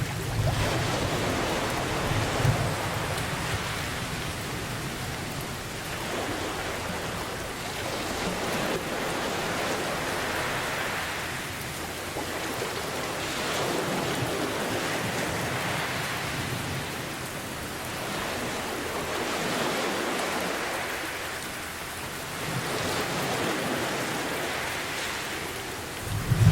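Steady heavy rain hissing, with slow swells that rise and fall every few seconds like surf washing in. A low thunder rumble fades out in the first few seconds.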